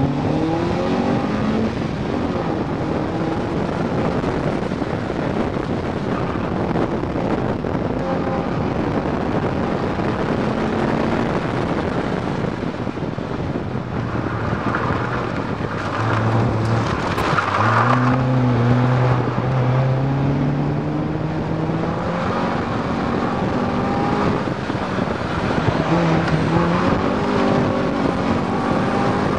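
Honda Civic autocross car's engine working hard through a timed run, its pitch climbing under acceleration and dropping off between pulls, over steady road and wind noise. About halfway through there is a stretch of tyre squeal as the car is pushed through the cones.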